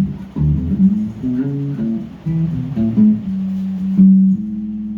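Electric bass guitar played through an amplifier: a short run of plucked notes, then a held note left ringing near the end. The instrument's active preamp has just been repaired and is working.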